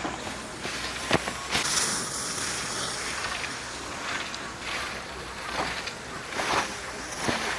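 Skis or a snowboard sliding and scraping over packed snow in a run of swells, like turns on a ski slope, with wind rushing over the microphone. A sharp click sounds about a second in.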